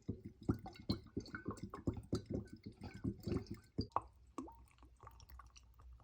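Apple cider vinegar pouring from its bottle into a jar packed with vegetables, in quick gurgling pulses about five a second that thin out about four seconds in.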